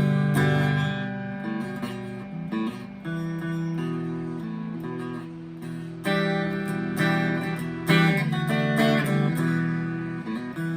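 Chapman ML3 Standard P90 electric guitar played clean through a Vox AV15 amp on the middle pickup position, with no effects. Chords are strummed and left to ring, mixed with picked single notes, with harder strums from about six seconds in.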